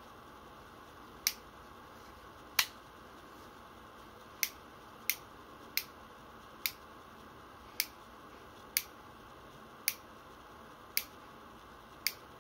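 Sharp metallic clicks from the action of a Tokyo Marui SAA .45 Artillery replica revolver being worked by hand, one click roughly every second, about eleven in all.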